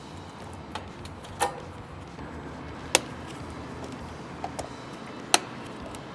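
Hand tools and parts clicking and tapping as the electrical parts of an air-conditioning unit are swapped out. There are about six sharp clicks, the loudest about 3 and 5 seconds in, over a steady low hum.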